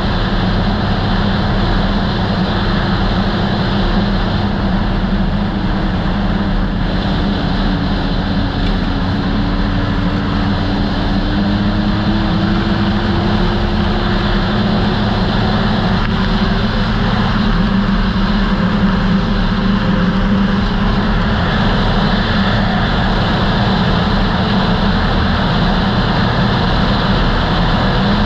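2008 Polaris Dragon Turbo snowmobile running steadily at trail speed, with a dense rush of wind and track noise. Its engine note dips slightly, then rises slowly through the middle.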